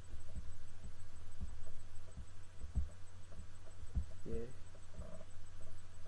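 Steady low hum with soft, irregular low thumps scattered through it, and a brief voiced murmur about four seconds in.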